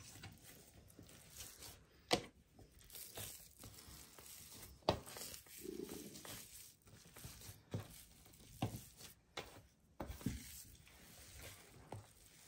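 Hands kneading a soft, oily mayonnaise dough on a tabletop: quiet kneading sounds broken by a few short knocks as the dough is pressed against the table.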